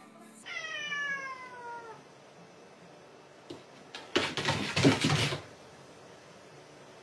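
A cat's long meow, falling slowly in pitch, about half a second in. A few seconds later comes a louder rough, noisy burst lasting about a second.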